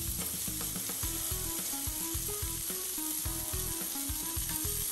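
London broil searing in hot oil in a cast iron skillet: a steady sizzling.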